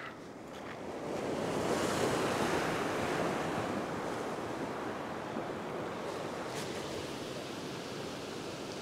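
Ocean surf breaking and washing over a rock ledge: a rushing wash that swells about a second in and then slowly eases off.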